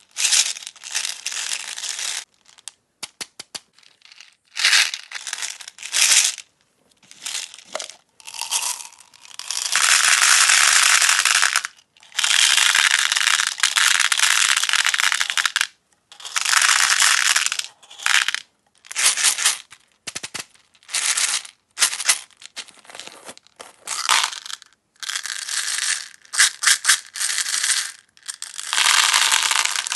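Tiny plastic beads pouring into molds: a series of rattling pours, each lasting one to three seconds and starting and stopping abruptly, with short gaps and a few separate sharp clicks between them.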